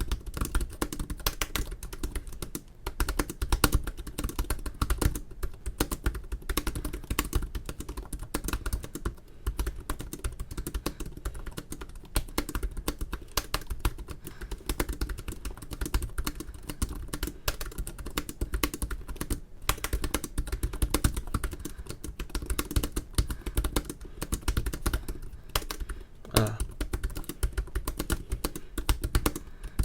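Fast, continuous typing on the keyboard of an HP Spectre x360 (early 2017) laptop: a dense stream of key clicks with a few brief pauses.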